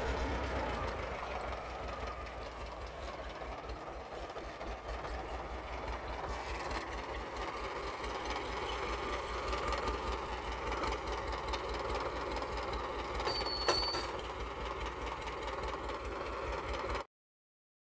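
Władimirec T-25 tractor's two-cylinder air-cooled diesel running steadily with an even low firing pulse, as it moves with the cultivator mounted on the hitch. A brief high squeal comes about three-quarters of the way through, and the sound cuts off abruptly near the end.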